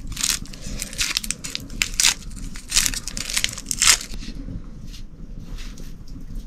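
A kitchen knife peeling the dry, papery skin off a red onion: quick crackling and tearing strokes that thin out about four seconds in.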